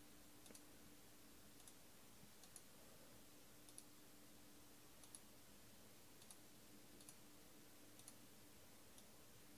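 Near silence: room tone with a faint low hum and small, sharp clicks about once a second.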